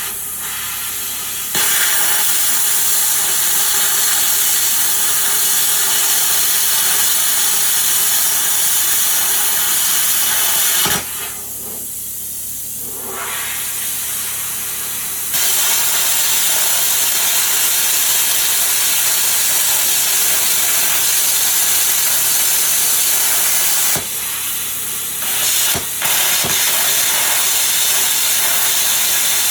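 Plasma cutter cutting 1/8-inch flat steel plate: a loud, steady hiss of the cutting arc and air jet. It drops in level three times: briefly at the start, for about four seconds around the middle, and for about two seconds near the end.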